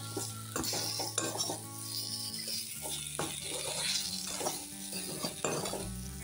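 A spatula stirring and scraping sliced potatoes around a metal kadai, with repeated scrapes and clinks against the pan over the hiss of the potatoes frying in oil.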